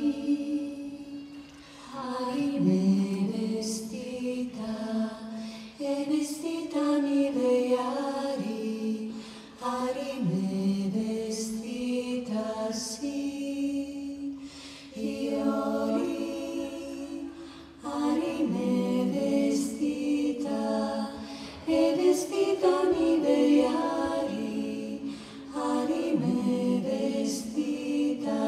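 Female a cappella vocal group singing live, several voices in close harmony with no instruments, in chant-like phrases of three to four seconds with brief breaks between them.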